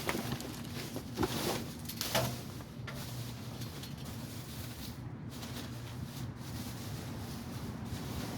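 A few knocks and rustles in the first couple of seconds, then a steady low hum.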